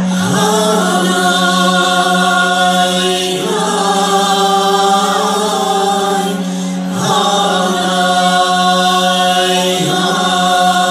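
A vocal ensemble sings a chant-like folk song together, amplified through stage speakers, over a steady low drone. It comes in phrases of about three seconds with short breaths between them.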